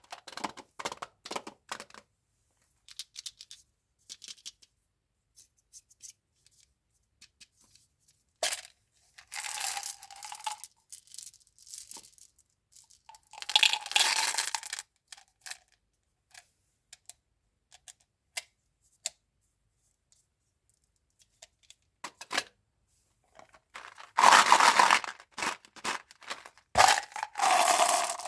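Candy packaging being handled and torn open. Scattered light clicks and taps come first, then three rustling, tearing stretches, the longest and loudest near the end.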